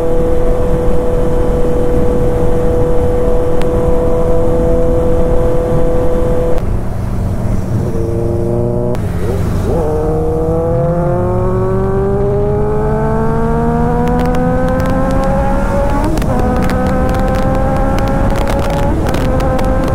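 Superbike engine holding a steady cruising pitch, easing off about six seconds in, then climbing steadily in pitch from about ten seconds as the bike accelerates, over a rushing wind noise.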